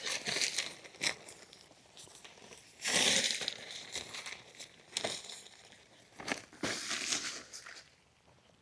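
Lightweight 3x3 tarp rustling and crinkling in irregular bursts as it is handled and laid out on the ground, loudest about three seconds in.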